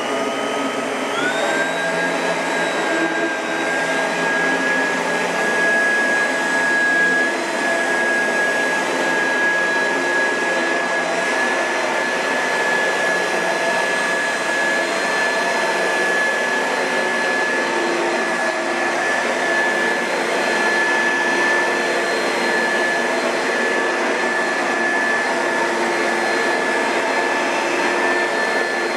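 Oreck XL2 upright vacuum cleaner's motor finishing its spin-up, its whine rising in pitch for about the first second, then running steadily with a high whine over a loud rush of air.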